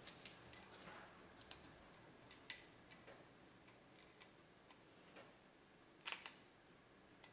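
Faint, scattered metallic clicks as thin steel brake pad slides (abutment clips) are snapped onto a caliper bracket by hand, with the sharpest clicks about two and a half seconds in and again about six seconds in.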